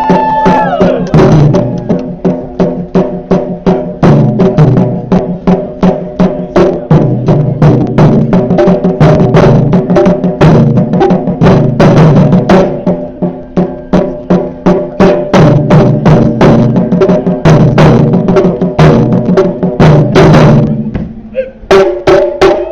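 Japanese taiko drums played by a troupe in a fast, even rhythm of loud strikes. The beat breaks off briefly near the end, then picks up again.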